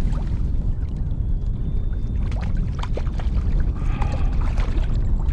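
Wind buffeting the microphone, a steady low rumble, with a few sharp clicks and splashes partway through as a hooked fish is brought alongside the kayak.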